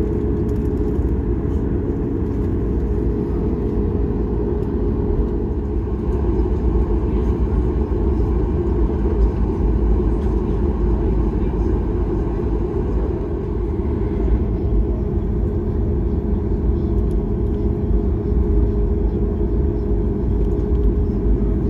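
Steady low rumble and hiss of cabin noise inside a Boeing 737-8 MAX airliner, holding an even level throughout.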